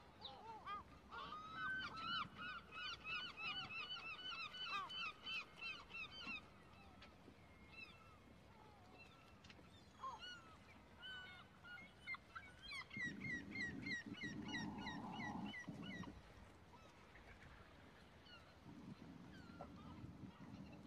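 A bird calling in two long bouts of quick, repeated shrill notes, about five a second. The first bout starts about a second in and the second comes in the latter half.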